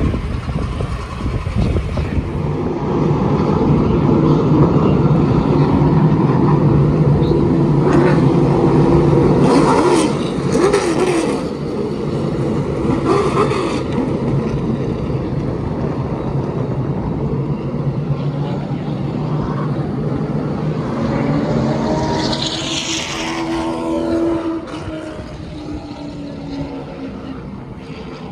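A field of short-track stock cars racing past on the oval, their engines running together in a loud pack. It is loudest in the first half, with an engine pitch sweeping down a little after twenty seconds in as cars go by, then it fades somewhat.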